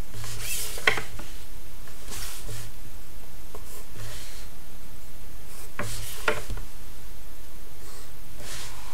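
Pencil lines being drawn on paper and a plastic set square being slid and repositioned along a wooden ruler: short scratchy strokes every second or two, with two sharper clicks, one about a second in and one about six seconds in.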